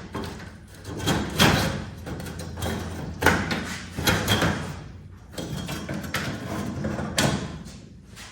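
Steel slats of a CNC plasma table being handled and set in place: a series of metal knocks and scrapes, the sharpest about one and a half and three seconds in.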